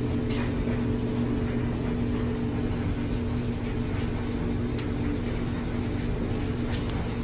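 A motor running with a steady low hum and drone, its pitch unchanging, with a few faint ticks.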